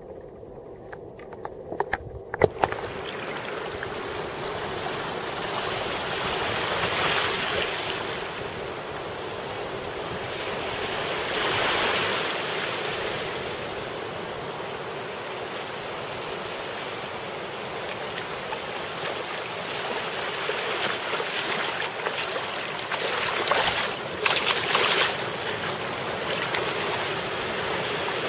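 Small waves washing in over a sandy beach, a steady wash that swells every few seconds. The first couple of seconds are muffled underwater sound with a few knocks, and sharper splashes come in near the end.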